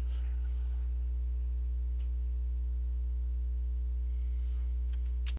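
Steady electrical mains hum with a stack of evenly spaced overtones, unchanging throughout. There is a faint click about two seconds in and another click at the very end.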